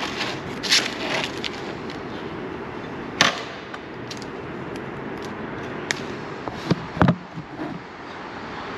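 A handful of sharp knocks and clicks from tools and parts as an electric dirt bike is assembled, the loudest about three seconds in and again near seven seconds, over a steady background hiss.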